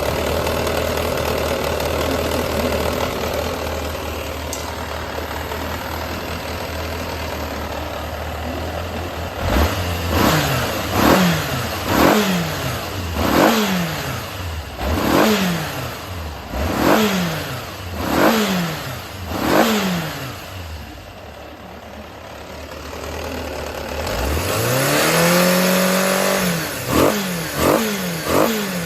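Yamaha XJR400 inline four-cylinder engine idling steadily, then blipped repeatedly, about one sharp rev a second with the pitch falling back after each, followed by a quieter idle, one longer held rev, and a few quick blips near the end. The seller describes it as running well, with no abnormal noise.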